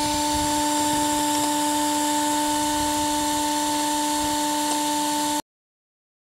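A steady motor whine holding one pitch over a hiss, cut off abruptly about five and a half seconds in.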